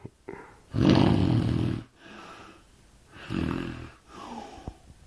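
Snoring in deep sleep: a loud snore about a second in and a second, weaker snore about three seconds in, each followed by a softer breath out.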